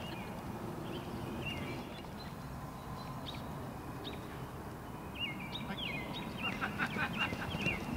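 Short, high chirping calls, a few scattered at first and then coming thick from about five seconds in, over a steady outdoor background hiss. After the snap near the end, a quick patter of running footsteps joins in.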